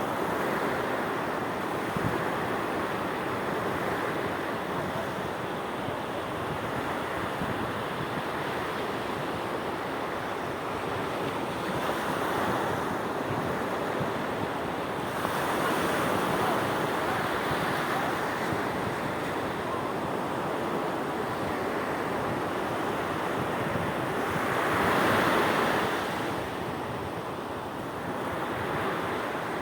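Sea waves breaking and washing on the shore, a continuous rush that swells with each wave, the biggest one about 25 seconds in, with wind buffeting the microphone.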